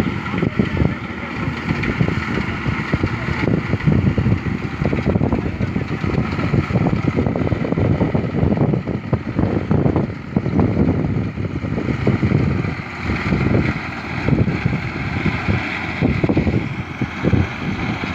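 Tractor engine running steadily during wheat harvesting, with irregular knocks over the top.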